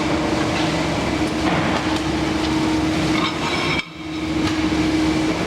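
Large industrial dough mixer running: a steady mechanical hum with clattering noise over it. It cuts out abruptly for a moment about four seconds in, then resumes.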